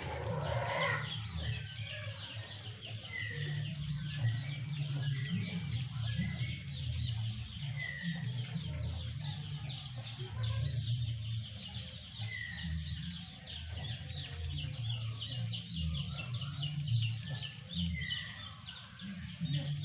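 Chickens clucking in the background, with short falling bird chirps every few seconds over a steady, dense chatter of high calls.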